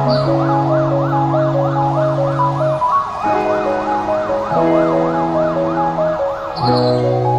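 Background music of held synth chords and a short-note melody, with a tone sweeping rapidly up and down about three times a second until it stops near the end.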